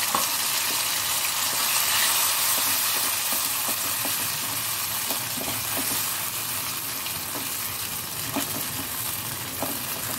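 A wet tomato, ginger and green chilli paste sizzles in hot oil in a pan, a spatula stirring it with scattered scrapes and knocks against the pan. The sizzle eases off gradually.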